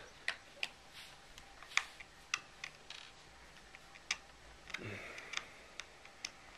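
Small screwdriver working a side screw in a white plastic MacBook case: a run of about a dozen irregular sharp clicks, with a brief scrape a little under five seconds in.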